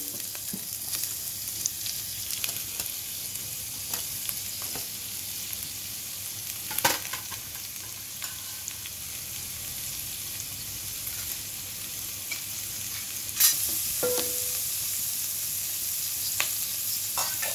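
Chopped onion sizzling as it fries in hot oil in a pan, with the spoon knocking against the pan now and then as it is stirred; the sharpest knock comes about three-quarters of the way through.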